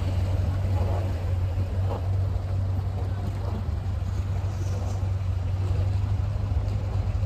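Car engines idling and rolling slowly past at close range, a steady low rumble.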